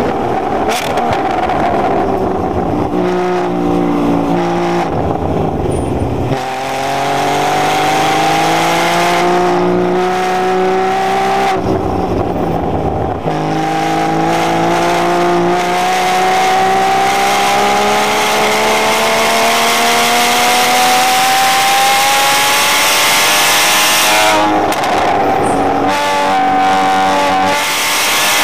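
Porsche sports car's engine, heard from inside the cabin while it is driven hard on a racetrack: the revs climb steadily under acceleration, then drop away at shifts and braking, in three long pulls.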